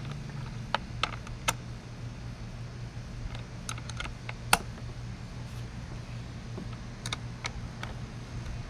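Irregular light clicks and taps of a hand tool working on the bar-retaining bolts of an Echo 56-volt chainsaw, tightening the guide bar back down after a chain change. A steady low hum runs underneath.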